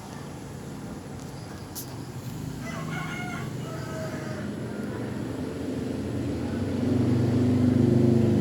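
A rooster crowing once in the background over a low steady hum, which grows louder near the end.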